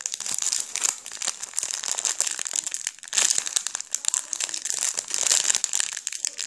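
Clear plastic packaging bag crinkling and crackling as hands squeeze a foam hamburger squishy through it. It swells loudest about three seconds in and again about five seconds in.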